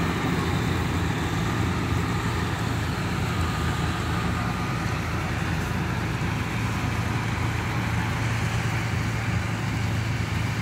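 Two Yanmar rice combine harvesters, a tuned 82 and a 70, with their diesel engines running under load as they cut rice, a steady engine drone.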